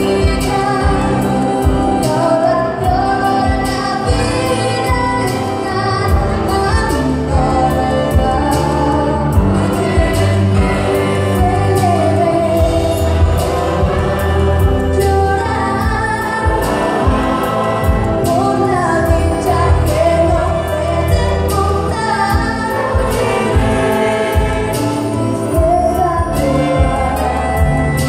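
A woman singing a song through a microphone over amplified backing music with a steady beat, in a ballad or gospel style.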